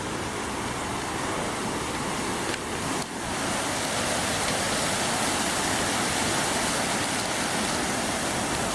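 Waterfall water rushing in a steady roar of white noise, briefly dipping about three seconds in and then a little louder.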